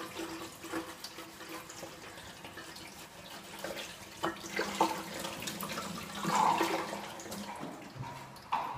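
Water running from a tap into a sink while hands are washed under it, with splashing and small clicks, and a bump near the end.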